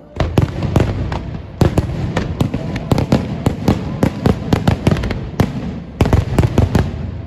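Fireworks going off in a rapid barrage of sharp bangs, several a second, starting suddenly and thinning out near the end.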